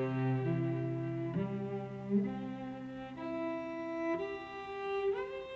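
Slow background music of sustained bowed string notes: a low held note under upper notes that change about once a second, with a note sliding up near the end.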